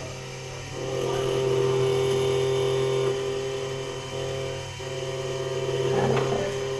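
CSH008 automatic key cutting machine running its 1.5 mm milling cutter through a key blank: a steady motor whine over a low hum, rising and falling in loudness as the cutter moves along the blade.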